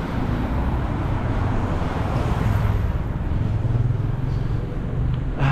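Road traffic: a motor vehicle's engine running close by over a steady rush of road noise, the engine hum swelling about two seconds in and again near four seconds.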